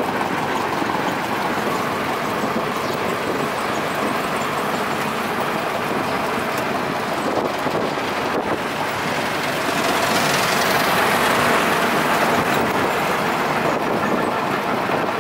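Steady motor-vehicle and road noise that swells for a couple of seconds about ten seconds in, as if a vehicle passes close by.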